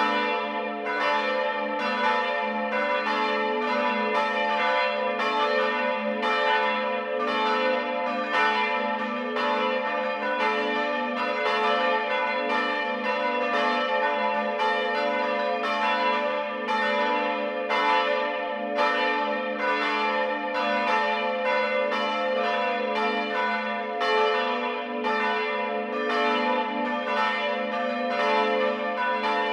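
Several church bells ringing together in a full peal from the tower. Their strokes fall roughly twice a second in an uneven stream, each one ringing on under the next.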